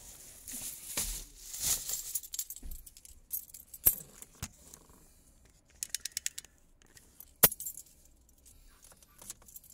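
Someone settling into a car seat: rustling, then car keys jangling in a quick run of small metallic clicks, with several sharp clicks, the loudest about seven and a half seconds in.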